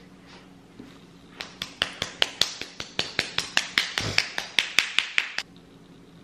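A quick, even run of sharp clicks, about five a second for some four seconds, with a dull thump about four seconds in.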